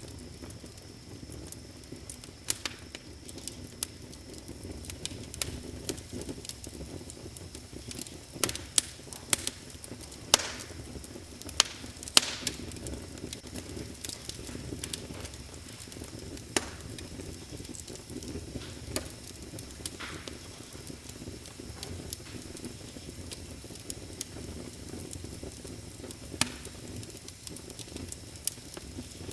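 Wood fire crackling: irregular sharp pops and snaps, with a cluster of louder ones about a third of the way in, over a steady low rush.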